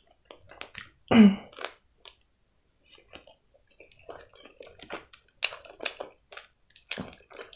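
Close-miked chewing of a bread-bun hot dog: wet smacking and clicking mouth sounds, irregular throughout. There is one short voiced sound from the eater about a second in.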